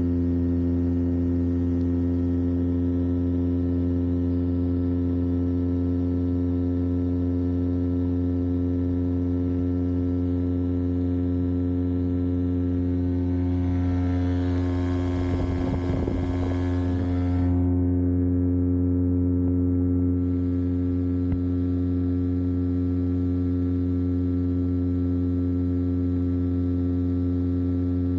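Engine running steadily at a constant speed, a droning hum that never changes pitch. A brief rush of noise passes over it from about 14 to 17 seconds in.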